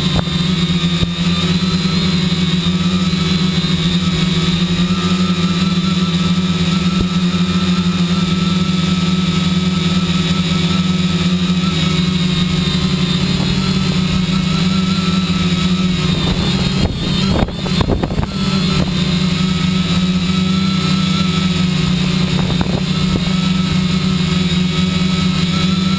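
Multirotor drone's electric motors and propellers humming steadily while it hovers in GPS hold against strong wind. The pitch wavers slightly as the motors work to hold position. There is a brief unsteady, gusty patch about two-thirds of the way through.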